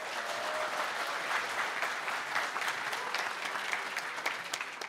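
An audience applauding: many hands clapping together, steady throughout.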